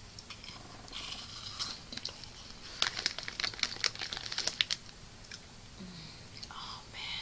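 Crinkling plastic snack packaging handled close to the microphone. About a second in there is a short rustle, then nearly two seconds of dense, sharp crackles.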